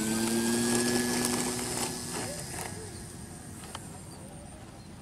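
Electric motor and propeller of a foam RC plane running hard, its whine rising slightly in pitch, then cutting off about two seconds in, with a few short knocks around the cutoff.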